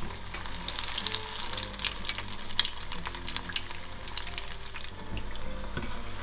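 Breaded cheese balls deep-frying in hot oil in a small saucepan: a steady sizzle full of crackling pops, busiest in the first few seconds.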